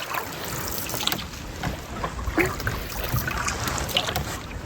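Canoe paddling on open water: paddle strokes dipping and splashing about once a second, over steady wind rumble on the microphone.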